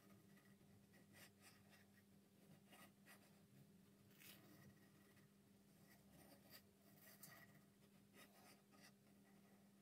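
Faint, irregular scratching strokes of a marker drawn along a steel ruler, over a low steady hum.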